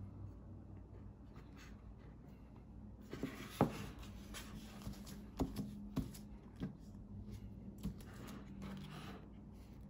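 A cloth rubbing over a phone's screen protector, with several light knocks as the phone is shifted on the tabletop, the loudest a few seconds in.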